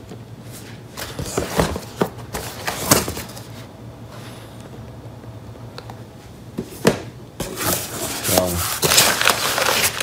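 Cardboard packaging being handled: scattered knocks and scrapes as a box is moved about, then a stretch of rustling from the carton's flaps and packing material near the end.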